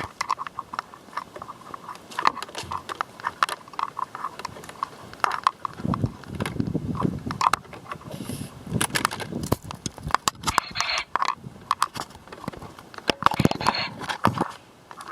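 Footsteps crunching and rustling over dry ground cover, with many scattered sharp clicks and cracks.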